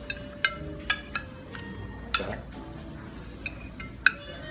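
Metal serving fork and spoon clinking against porcelain plates while a cooked branzino fillet is lifted off the bone and laid on a plate: about seven sharp clinks, each ringing briefly.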